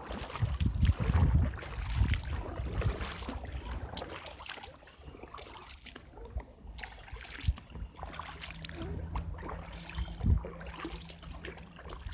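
Hydro-Force Ventura inflatable kayak being paddled: paddle strokes dipping into the water with trickling and splashing, and scattered knocks. Low rumbling in the first few seconds, and a low steady hum in the last few.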